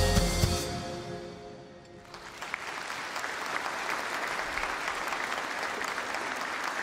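A live band's closing chord, accordion among the instruments, is held and dies away over about two seconds; then a large audience applauds steadily.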